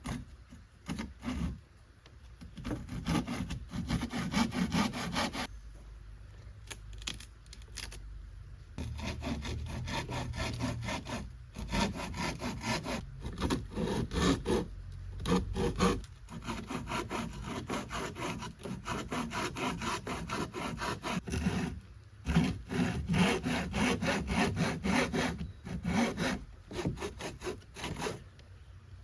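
Hand saw cutting through a wooden board with quick back-and-forth strokes, in several runs broken by short pauses.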